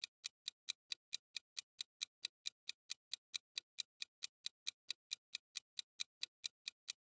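Countdown timer ticking sound effect: steady, even clock-like ticks, about four and a half a second, marking the time allowed to answer.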